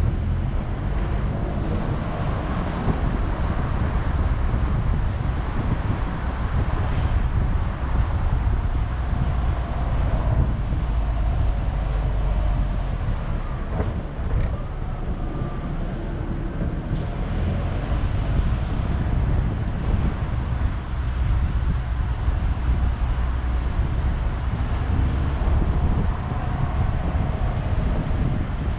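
Car driving slowly through city streets: a steady low rumble of road and engine noise, with wind buffeting the camera's microphone.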